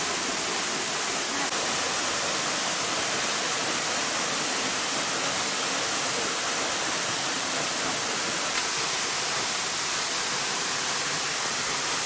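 A waterfall rushing steadily as its water drops about 30 metres into a pool: an even, hissing roar of falling water that does not change.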